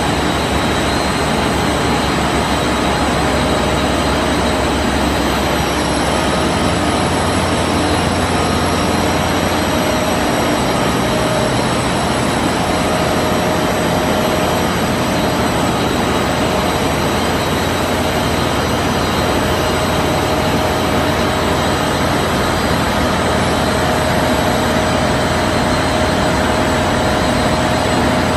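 Open-width continuous washing machine for cotton knit fabric running in a mill. It makes a loud, steady machinery noise with a low hum and a few constant whining tones.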